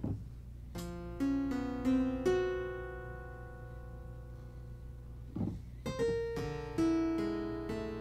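Clavichord playing two slow clusters of single struck notes, the first about a second in and the second about five and a half seconds in, each note left ringing so that the intervals sound together and die away slowly.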